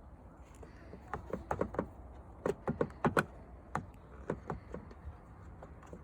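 Hand work on a car's tail-light assembly: a string of irregular light clicks and taps as its plastic parts and a tool are handled, most of them between about one and five seconds in.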